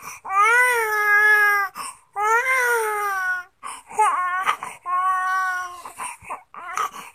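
An infant crying in about five long wailing cries, each a second or more long, with short breaths between them.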